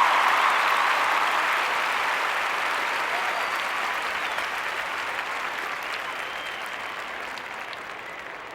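Large crowd applauding, dense clapping with a few faint shouts or whistles, fading gradually as the applause dies down.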